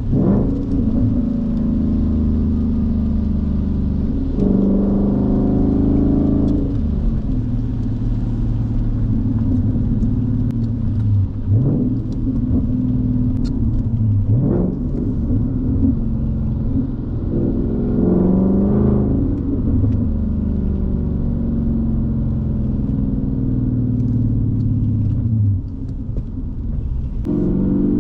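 2019 Mustang GT's 5.0-litre V8 running through an MBRP cat-back race exhaust, heard from inside the cabin on the move. It gives a low rumble whose pitch climbs and drops several times as the car accelerates and the driver shifts gears.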